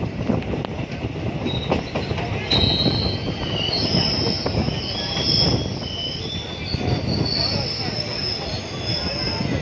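Passenger train coach running along a station platform: a steady rumble of the wheels on the rails, with high-pitched wheel squeal setting in about two seconds in and carrying on as several shrill overlapping tones.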